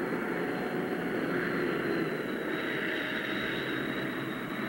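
Aircraft engines running: a steady noise with a thin, high whine above it.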